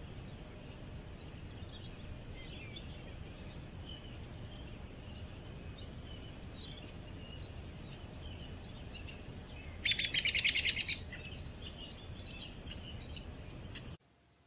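Small birds chirping and calling in a forest over a low background hiss, with one loud, rapid trill lasting about a second, about ten seconds in. The sound cuts off abruptly just before the end.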